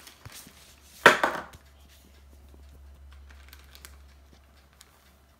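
A single sharp knock about a second in, then soft rustling as icing sugar is poured from a plastic bag into a measuring cup over a sieve. A low, steady hum runs underneath.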